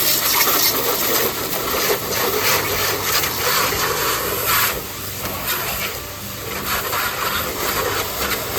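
A car's exterior being washed: water spraying and splashing on the bodywork, swelling and easing, over a steady low machine hum.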